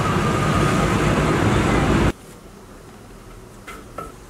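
A loud, steady mechanical rumble that cuts off abruptly about two seconds in. After it comes a much quieter stretch with a couple of faint clicks.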